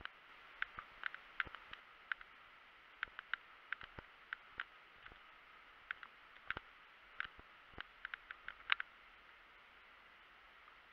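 Faint, irregular clicks and ticks of movement through tall dry grass and light handling of a rifle close to the microphone, over a steady faint hiss.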